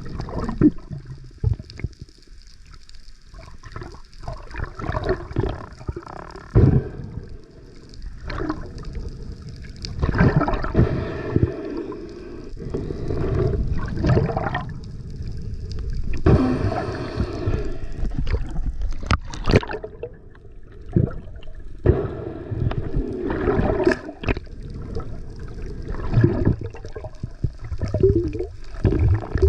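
Water sounds around a diver's camera in the sea, swelling and fading in irregular surges with occasional sharp knocks.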